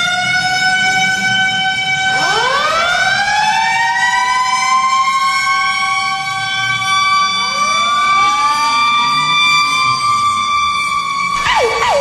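HIFK's ice hockey goal horn, a siren-like horn whose wails glide up in pitch and then hold, with a new rising wail layered in about two seconds in and again past seven seconds. Just before the end, another sound with quickly bending pitches breaks in.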